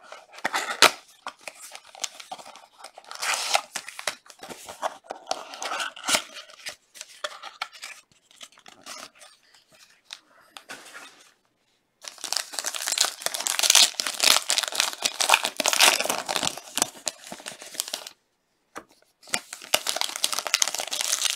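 Crinkling and tearing of a silver foil trading-card pack as it is taken out of its small cardboard box and torn open by hand. The crackling comes in irregular bursts, with a dense stretch of crinkling in the second half.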